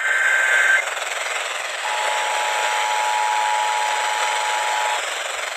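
Emergency Alert System signal: the end of a SAME header data burst, a brief buzzy warble, followed about a second later by the two-tone EAS attention signal held for about three seconds. It announces an incoming emergency alert and plays over a steady hiss of radio static.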